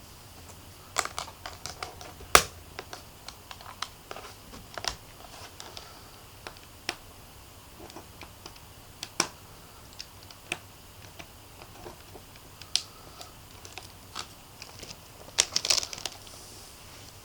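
Logitech MK250 membrane keyboard keys being pressed: irregular, scattered keystroke clicks, with a quick flurry of typing near the end.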